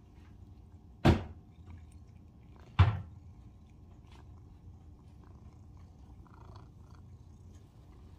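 Two short, sharp thumps, about a second in and again nearly two seconds later, over faint room noise.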